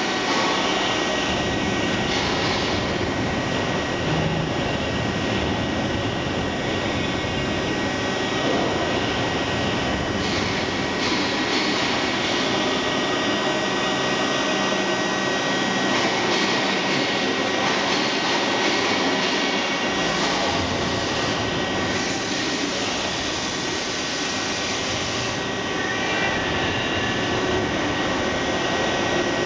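Steady whir and hiss of a Starvision AC5 CNC machining centre running through an automatic head change, with a constant high tone. The noise shifts several times as the ram and the head-magazine covers move.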